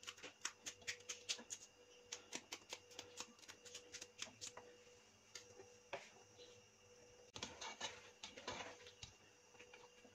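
Green chillies being cut into rings over a cooking pot: a fast run of faint crisp clicks, about four a second, for the first few seconds. About seven and a half seconds in, a spoon scrapes and knocks against the metal pot as the curry is stirred.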